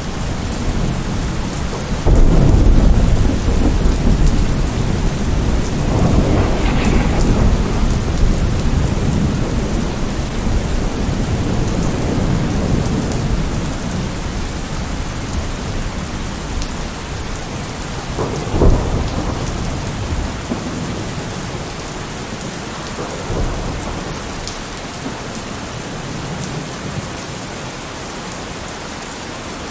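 Thunderstorm: steady rain with thunder. A loud low rumble breaks out about two seconds in and slowly dies away, a sharper clap of thunder comes about two-thirds of the way through, and a fainter rumble follows a few seconds later.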